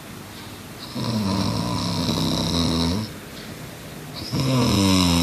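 A boy snoring: two long snores of about two seconds each, with a short pause between them. The second begins about four seconds in.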